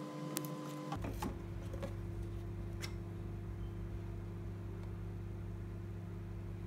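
A steady low mechanical hum of several held pitches that comes in about a second in. Over it there are a few light clicks and taps of kitchen utensils on the counter and an olive-oil bottle cap being opened.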